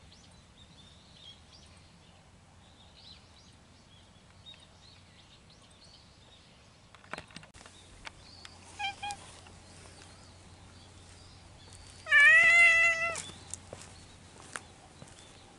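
A cat meowing: a short meow about nine seconds in, then a loud, drawn-out meow lasting about a second near the end.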